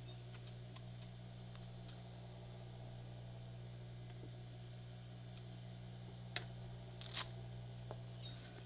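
Steady low hum with scattered light clicks, two sharper ones about six and seven seconds in.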